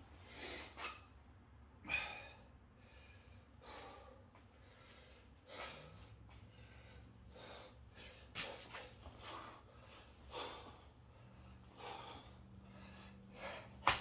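A man's heavy, gasping breaths during burpees, a forceful breath every second or two, with a sharp slap near the end as his hands hit the mat. A low steady hum comes on about six seconds in.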